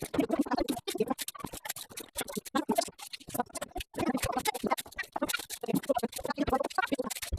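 Metal ladle scraping and clinking against a metal pan of chicken rendang in gravy, a busy run of quick clicks and scrapes.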